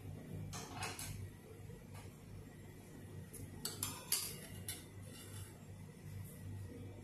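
Metal fork clinking and scraping against a ceramic plate as slices of stewed beef tongue are set in place: a couple of light clicks about a second in, then a quick cluster of clinks around four seconds in, the loudest of them. A steady low hum runs underneath.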